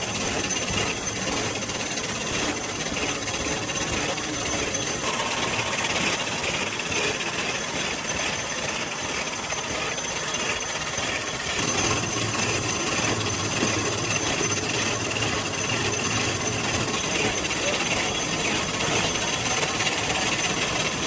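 Cardboard factory machinery running continuously: a dense, steady mechanical noise with two thin high whines over it, its low hum growing stronger about halfway through.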